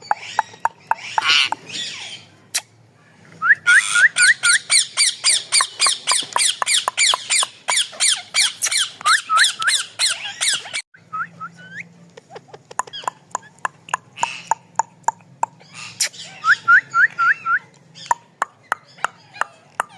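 Parrot calling: runs of short rising chirps and squawks, with a dense, fast chatter that breaks off abruptly about eleven seconds in, then sparser chirps and clicks.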